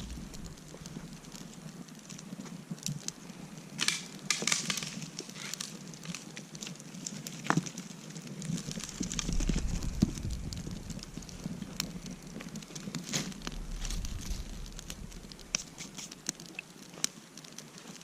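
Small wood fire crackling, with irregular pops and snaps throughout and a few sharper ones.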